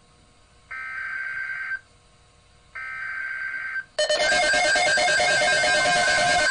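Emergency Alert System SAME header: two buzzy digital data bursts, each about a second long, a second apart, encoding the alert's type and area. About four seconds in, loud guitar music starts.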